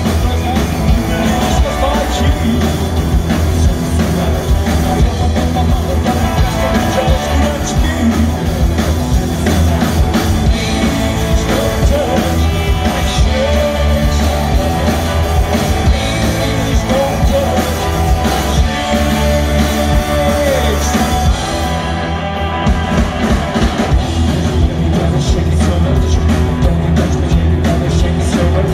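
Live rock and roll band playing loud through a PA, with electric guitar, bass, drums and a sung vocal. The bass and cymbals thin out briefly about three-quarters of the way through.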